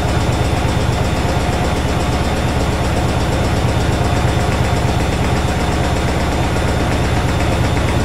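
Washing machine in its spin cycle, the drum spinning fast with a steady, even hum and rumble.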